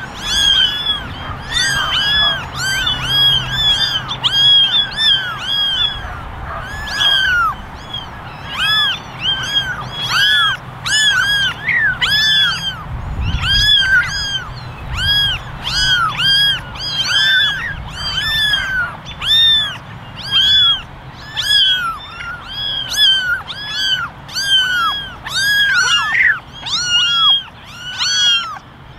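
A litter of young kittens meowing nonstop for attention: many short, high mews overlapping, each rising and then falling in pitch.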